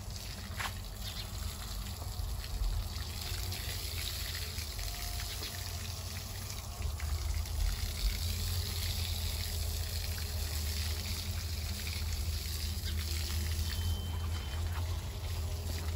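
Garden hose spraying water onto a buffalo's wet back and splashing onto brick paving, a steady rushing and pattering. A low rumble grows stronger about halfway through.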